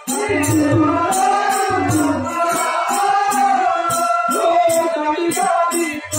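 A man singing a melodic stage song in a drawn-out style, with live accompaniment: small hand cymbals or a jingle keep a steady beat of about two or three strikes a second, and low drum thuds come in twice in the first half.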